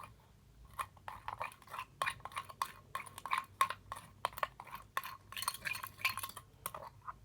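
Spoon clinking and scraping against the container as glue slime is stirred with detergent activator, in irregular quick clicks several times a second, the mixture thickening into slime.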